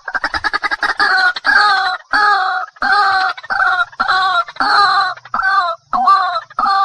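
Water hen calling: a quick stuttering run of notes about the first second, then a steady series of loud repeated calls, about two a second.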